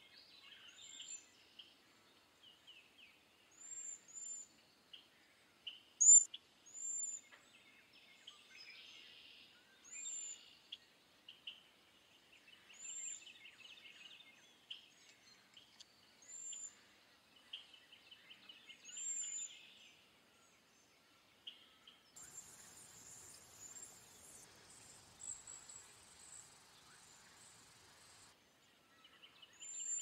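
Cedar waxwings giving their very high, thin, lisping whistled calls, short notes that rise and fall, repeated every second or so, over lower chattering bird notes. Near the end a steady hiss runs for several seconds.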